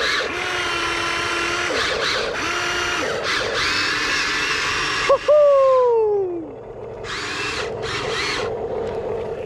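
Electric motors and gearboxes of a Huina 1593 RC excavator whining as its tracks and arm move, the pitch stepping up and down with each control input. About five seconds in comes the loudest whine, which falls steadily in pitch as the motor winds down. A gritty gear whirr follows later.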